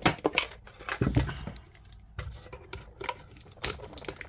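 Irregular clicks, taps and clatters of a metal Pokémon TCG tin being opened and its contents handled, with one heavier knock about a second in.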